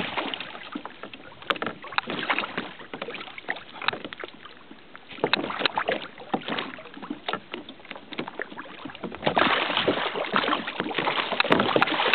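Water slapping against a kayak's hull and wind on the microphone, broken by many short clicks and knocks, growing louder about nine seconds in.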